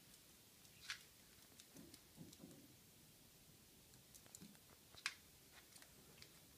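Near silence broken by a few faint clicks and soft taps of dog claws and paws on a wooden floor, the two sharpest ticks about a second in and about five seconds in.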